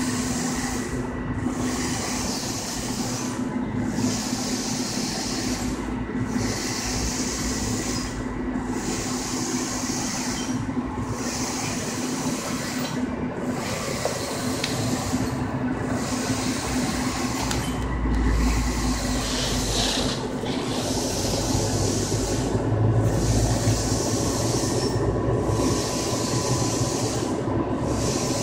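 Infiniti 3360EC Plus wide-format printer printing: its printhead carriage sweeps back and forth with a hiss that breaks off briefly at each turn, about every two and a half seconds, over a steady hum.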